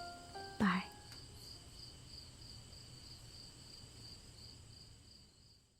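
A high insect chirp pulsing about three times a second, steady until it fades out at the very end. A brief voice-like sound falls in pitch about half a second in.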